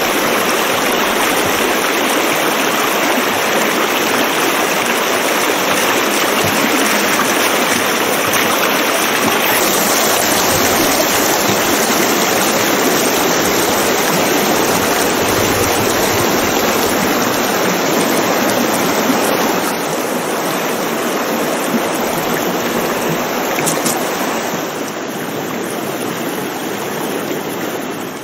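Shallow river rushing over a stony bed: a steady, loud rush of water that eases a little about twenty seconds in and again near the end.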